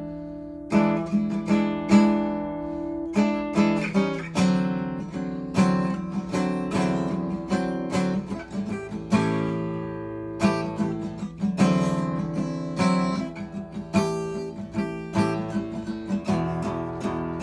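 Acoustic guitar playing the instrumental intro of a blues song, with strummed chords and picked notes in a steady rhythm.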